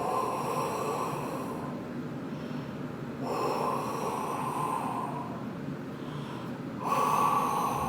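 Breath blown through a small cardboard toilet-paper tube to imitate the wind: three long gusts, each a second or two, echoing in the tube.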